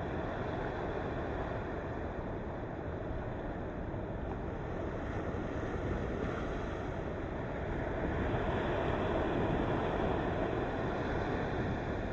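Ocean waves washing against the shore in a steady rushing surf, swelling louder about eight seconds in.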